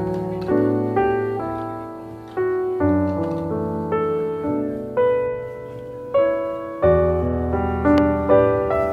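Solo piano music, notes and chords struck about every half second to a second, each fading before the next.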